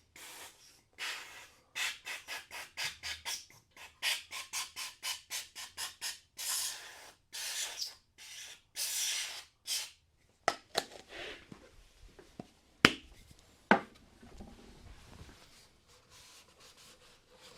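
Quick, repeated rubbing strokes, about three or four a second, with a few longer ones, as silicone is worked onto the rubber seal of a motorcycle air-filter housing. About ten seconds in the rubbing stops, and a few sharp clicks of handling follow.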